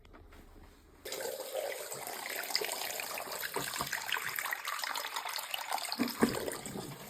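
Water from a faucet starts running about a second in, splashing steadily into a sink with small irregular knocks.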